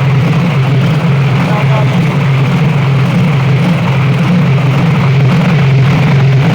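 Small 7 hp petrol engine running steadily at constant speed, driving a homemade walnut-hulling machine, with a pulsing low hum.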